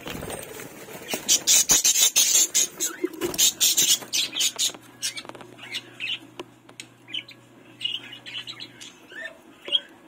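Pet budgerigars chirping in short calls, with a burst of rustling and clattering from about a second in to about five seconds in, the loudest part, while the wooden nest box is opened to show a clutch of eggs.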